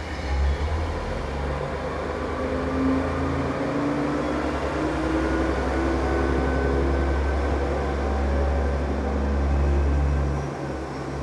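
KiHa 40 diesel railcar's engine idling while the train stands at the platform: a steady low rumble whose note shifts slightly.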